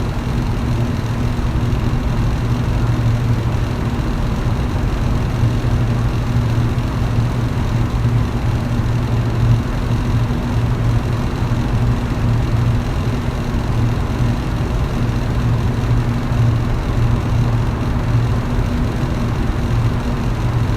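Electric fan running steadily: a constant low motor hum under an even rush of air, with no change in speed.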